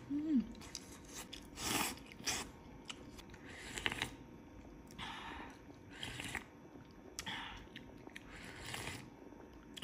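A person eating instant noodle soup with seafood close to the microphone: chewing and mouth sounds in short bursts every second or so, with a brief hum at the start.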